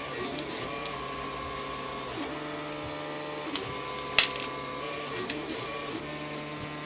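A 3D printer running, its stepper motors giving a steady whine that jumps in pitch every second or two as the moves change. Over it come a few sharp clicks of small printed parts and a hex key being handled, the loudest about four seconds in.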